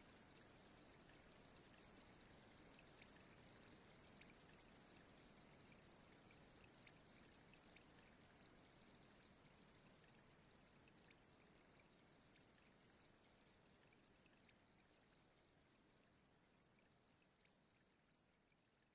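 Near silence: a faint hiss with a faint high-pitched tone that pulses on and off.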